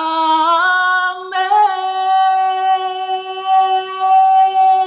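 A woman singing a worship song unaccompanied, sliding up through a short phrase and then holding one long, steady note.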